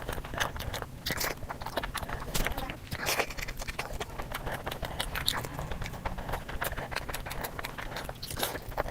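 Close-miked chewing of a sweet dessert: irregular wet mouth clicks, smacks and small crunches in quick succession.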